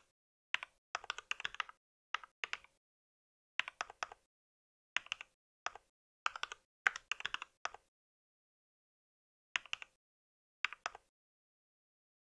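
Mechanical keyboard typing: quick bursts of key clicks separated by short pauses, with a longer pause past the middle.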